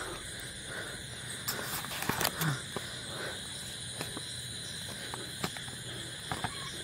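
Footsteps crunching on dry leaves, twigs and brush as a person walks through undergrowth, with a cluster of crunches about two seconds in and a few more later. A steady high chirring of night insects such as crickets runs underneath.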